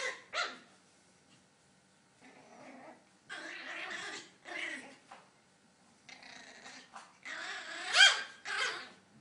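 Maltese puppy growling in a string of short bursts, with a higher, rising yap near the end that is the loudest sound.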